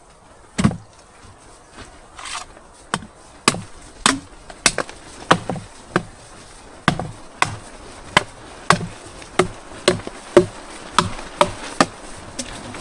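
A steady series of sharp knocking strikes, about two a second, from a hand tool being struck over and over.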